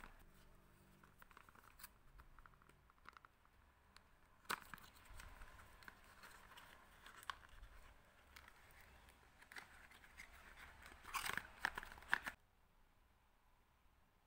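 Hands handling and tearing packaging, with scattered crinkles and small knocks. The loudest burst comes about eleven seconds in, and the sound stops about a second later.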